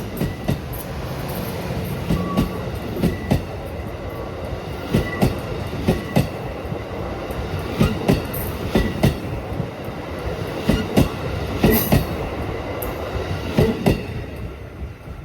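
Wheels of a passing steam-hauled passenger train running over rail joints: a steady rumble broken by a repeated clickety-clack, the clicks often coming in close pairs.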